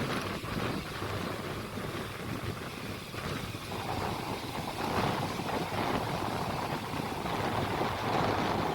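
Wind blowing on the microphone by the sea, with the wash of the sea; the rushing grows a little fuller about halfway through.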